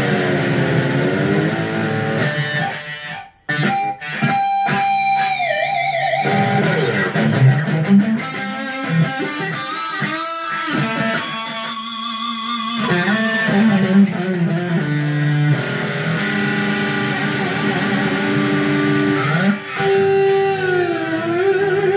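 Harley Benton Red Special-style electric guitar played through an amplifier: sustained lead notes and chords, several notes bending down in pitch and back, with a brief break about three seconds in.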